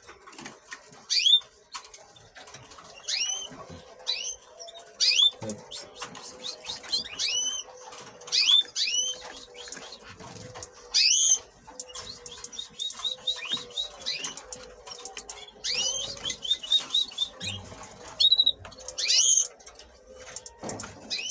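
Canaries calling: short rising chirps repeated every second or so, with a quick run of short high notes around the middle. Light clicks from handling run underneath.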